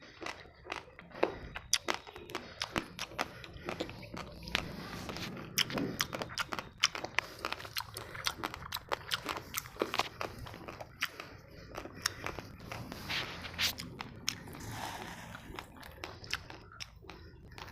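A person chewing raw basmati rice, the dry grains cracking in many sharp, irregular crunches.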